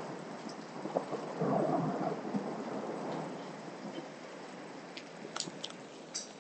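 Thunder rumbling, swelling about a second and a half in and then rolling away, over a steady hiss of rain. A few faint ticks near the end.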